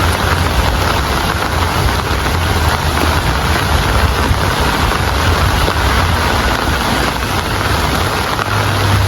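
Rain falling steadily, with a low steady rumble underneath.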